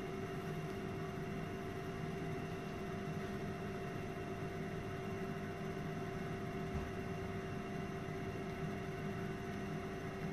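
Steady electrical hum of equipment in an X-ray procedure room, holding a few constant tones with no change.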